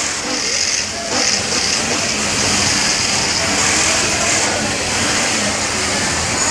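Garment-factory din of many industrial sewing machines running at once, a steady mechanical whir with a high hiss that swells and fades several times.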